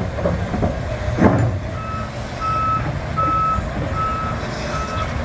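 Volvo EC550E crawler excavator's motion alarm beeping, five even single-pitch beeps about one and a half a second apart, over the machine's diesel engine running. A loud clank about a second in, before the beeps start.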